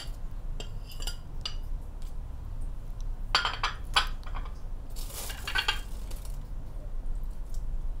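A steel ladle clinking against a glass bowl as shrimp and mussels are tipped into wet batter and stirred in. The clinks are scattered, with two busier bursts about three and five seconds in, over a low steady hum.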